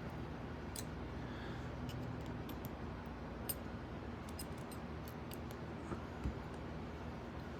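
Scattered light clicks and ticks of small metal lock parts and tools being handled, with a sharper tap about halfway through and a dull bump of something set down near the end, over a steady low hum.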